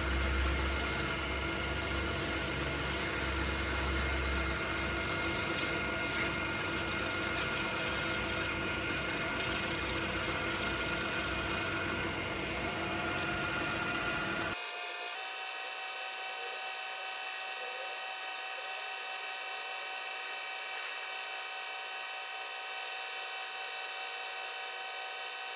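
Lathe running steadily with a whine of many fixed tones, spinning an acrylic crochet-hook blank. About halfway through, the low rumble cuts out abruptly while the whine carries on.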